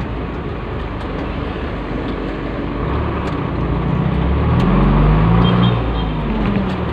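Diesel vehicle's engine and road noise heard from inside the cab while driving. About four seconds in, the engine note rises and grows louder as the vehicle accelerates.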